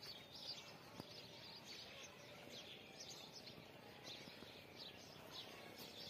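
Faint chirping of small birds: many short, high calls repeating irregularly over a low steady background hiss, with one faint click about a second in.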